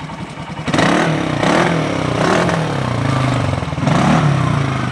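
Polaris RZR 170 youth side-by-side's small engine revving under throttle, its pitch surging up and down several times, starting suddenly about a second in.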